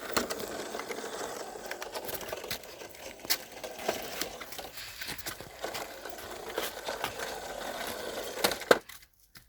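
Remote-control toy bus driving: its small electric motor and gears whir steadily with scattered clicks and rattles, then stop abruptly with a louder click near the end.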